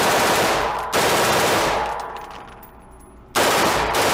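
Three gunshots from a firearm: one at the start, one about a second in and one near the end. Each echoes and fades slowly in the indoor range.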